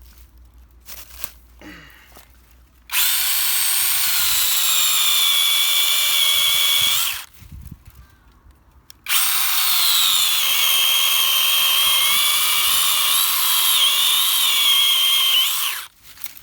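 Small battery-powered chainsaw with a 7-inch bar cutting into a tree trunk in two runs of several seconds each, a steady high electric whine; in the second run the pitch wavers as the chain bites into the wood.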